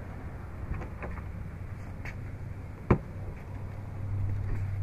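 A water-filled hard-sided cooler is tipped onto its side on concrete, with one sharp knock about three seconds in as it comes down. A steady low hum runs underneath and gets louder near the end.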